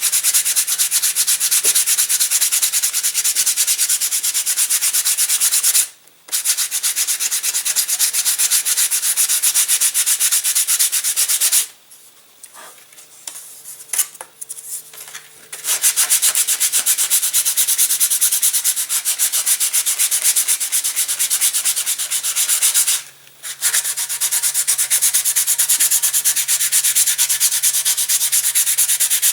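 Sandpaper being rubbed back and forth by hand over a balsa glider wing in rapid strokes, a steady scratchy hiss. It stops briefly three times, the longest pause lasting about three seconds near the middle.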